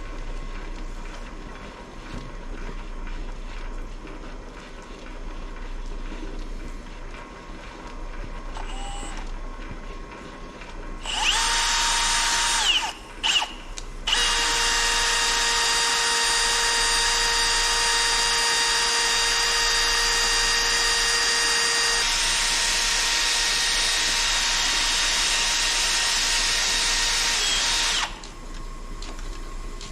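A high-speed electric power tool whines as it spins up about eleven seconds in, stops for a moment, then runs at a steady pitch for about fourteen seconds before cutting off suddenly.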